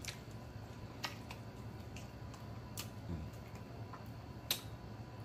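Close-up eating sounds of a man working the meat off a hot chicken wing: soft chewing with a few sharp lip smacks about every second and a half, and a short low hum a little past halfway.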